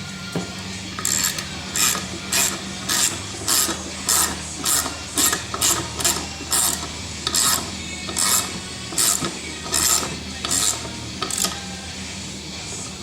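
Rasping scraping strokes made by hand, about two a second, starting about a second in and stopping shortly before the end, over a steady low hum.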